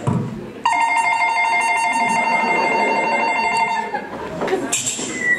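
A telephone ringing: a steady, rapidly trilling ring that starts under a second in and lasts about three seconds.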